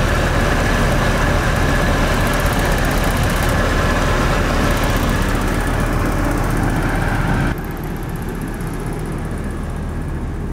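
Onboard RV generator running steadily under the load of two air conditioners, a steady hum with its compartment side panel rattling. The sound drops suddenly about seven and a half seconds in.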